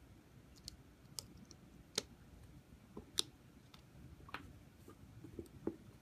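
Fingers handling small plastic machine parts, pressing a white adhesive cover onto an orange plastic connector: scattered light clicks and taps, the sharpest about two seconds and three seconds in.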